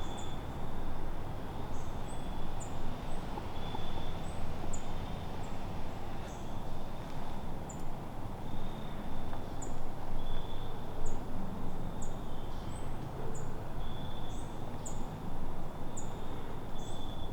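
A small bird's thin, high chirps repeat irregularly, about one a second, with short held notes pitched lower between them. Under them runs a steady low background rumble.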